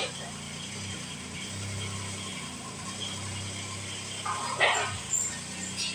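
A steady low mechanical hum with a few short metal clanks and rattles about four to five seconds in, the loudest near the middle of that cluster.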